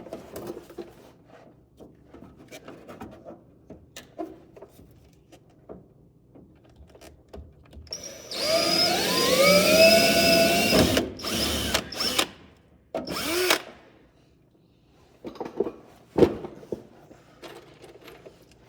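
Handheld power drill running: one run of about three seconds with the motor pitch climbing as it speeds up, then a few short triggers, the last one winding down. Light clicks and knocks of hand work come before and after.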